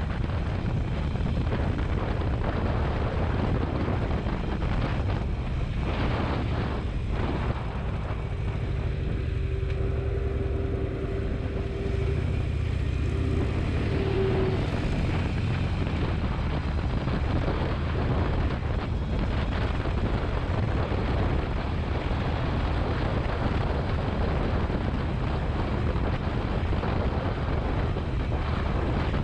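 Motorcycle riding along a road: engine running under a steady rush of wind on the microphone. A single steady tone holds for several seconds midway.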